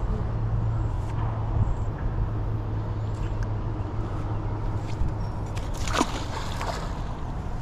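A neodymium magnet-fishing magnet on its rope is thrown out and hits the shallow river with one splash about six seconds in, over a steady low rumble.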